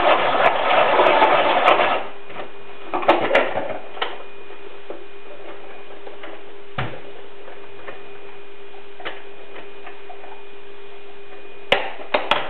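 Hand-operated food chopper rattling as it chops onion, for about the first two seconds. Then a steady hum with a few scattered knocks and clicks.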